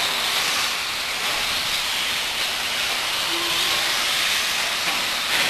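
Several electric radio-controlled off-road buggies racing on a track, giving a steady high hiss of motors, gears and tyres.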